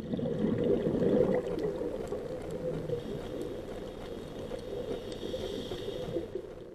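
Underwater bubbling and gurgling of a scuba diver's exhaled bubbles, loudest for the first second or so and then steadier.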